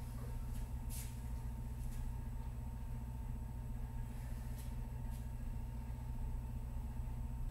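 Steady low hum of room noise, with a few faint brief ticks.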